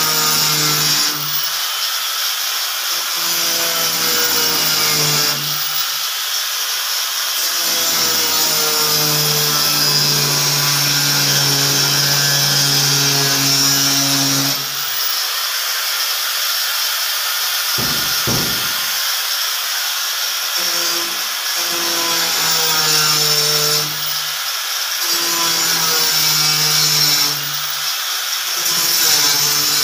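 Hand-held power tool cutting a round hole in a ceiling board, with a constant high grinding hiss. Under it the motor's low hum comes and goes several times, dropping out for a few seconds past the middle, when there is a short knock.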